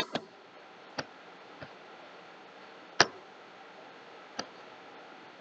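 Computer mouse clicking five times at irregular intervals, the loudest about three seconds in, as a misspelled word is right-clicked and a spelling suggestion is chosen; faint steady hiss behind.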